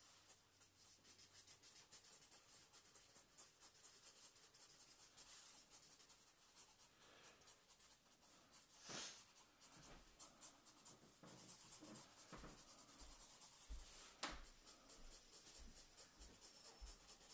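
Faint, quick scratching of a green marker hatching back and forth across paper while colouring, with two slightly louder strokes about nine and fourteen seconds in.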